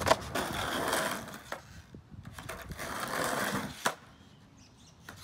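Skateboard wheels rolling on concrete, the rolling noise swelling and fading twice. Sharp clacks of the board hitting the ground come just after the start and again about four seconds in.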